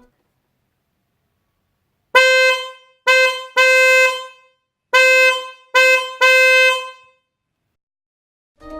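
Electric car horn sounding in two sets of three blasts, two short and one longer, at one steady pitch. The blasts start about two seconds in.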